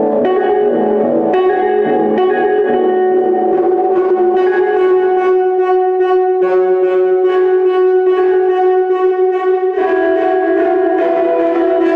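Electric guitar played through an amplifier and effects pedals. Picked notes come first, then long, sustained notes are held, with a new chord coming in near the end.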